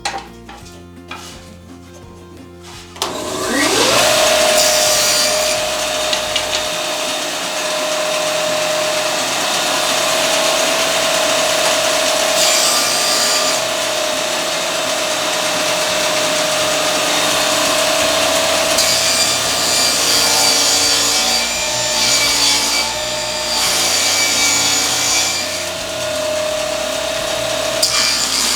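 Table saw starting up about three seconds in, its motor whine rising to a steady pitch, then the blade cutting through wood with a loud, steady hiss that changes as the feed and load vary. Before the start there are a few knocks from handling.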